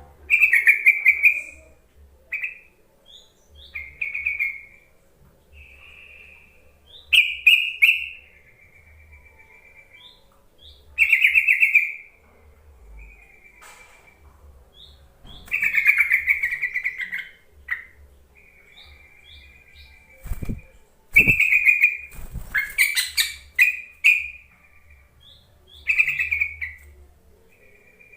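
Sooty-headed bulbul calling: short bubbly phrases repeated every few seconds, a calling sound used to lure caged bulbuls into singing. Two dull thumps come about twenty seconds in.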